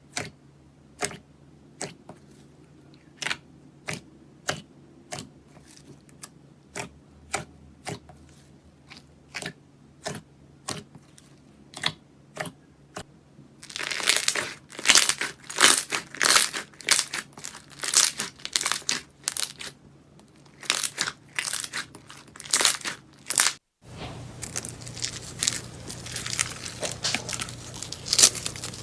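Slime being worked by hand: a steady run of sharp pops, one or two a second, then from about halfway louder, denser crackling and squelching as it is squeezed and pressed. After a brief break near the end the crackling goes on more quietly.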